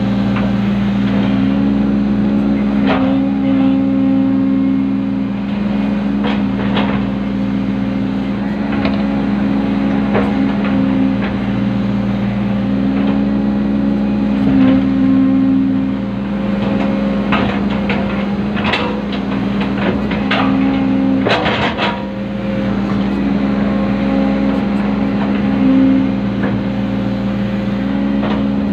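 Komatsu PC120 hydraulic excavator heard from inside its cab: the diesel engine runs with a steady hum that swells and eases as the hydraulics take load, while the boom and bucket backfill soil. Scattered knocks and rattles come through, with a cluster of them a little past the middle.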